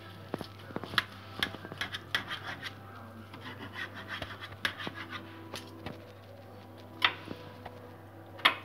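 A fork and knife scraping and clicking against a baking tray and the meat while the twine is pulled off a roast pork leg, with a string of short scrapes and several sharp clinks, the loudest about a second in, at about seven seconds and near the end.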